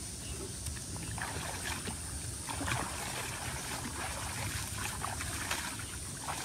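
Shallow pond water sloshing and splashing lightly as people wade and move their hands in it, with scattered small splashes over a steady outdoor hiss.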